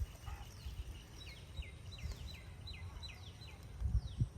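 A bird calling a quick series of short, falling chirps, about three a second, over a low outdoor rumble, with a couple of dull thumps near the end.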